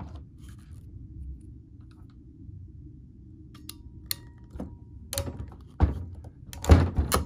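A hand crimping tool being loaded and squeezed onto a wire pin terminal: a series of sharp metallic clicks starting about three and a half seconds in, the loudest near the end as the jaws close, over a low steady hum.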